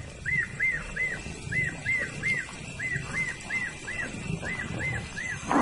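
A small night animal's repeated chirping call, each short note rising and falling, about three a second, over low irregular sounds of lions feeding on a carcass.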